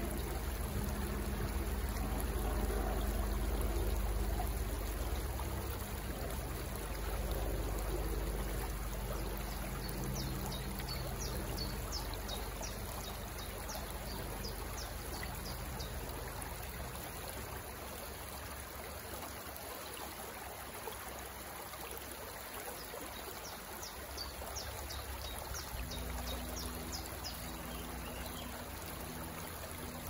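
Water trickling and flowing steadily, with a small bird's quick high trill twice, about a third of the way in and again near the end. A low hum sits underneath, fading out midway and returning near the end.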